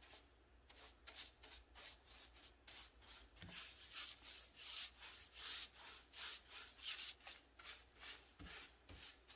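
Paintbrush bristles swishing paint onto a wooden drawer front, a faint stroke about two to three times a second.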